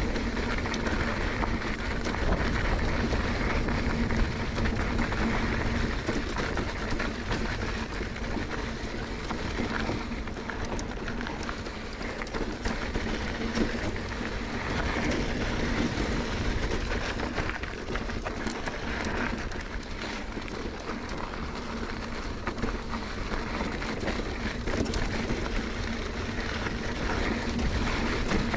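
Mountain bike riding fast down a rough trail: continuous tyre roar, rattling and wind buffeting on the microphone, with a steady low hum underneath.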